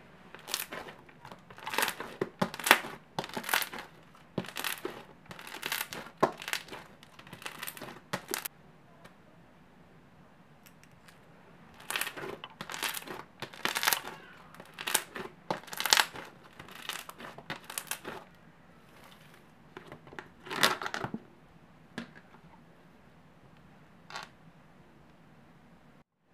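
Hand squeezing and pressing glossy slime packed with small foam (floam) beads, making crackly, wet squishing in bursts of about a second, with a pause of a few seconds partway through.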